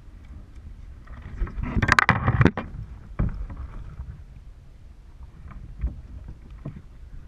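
Handling noise in a kayak as a caught bass is held and moved about: rustling and knocks, loudest for about a second around two seconds in, then fainter scattered ticks.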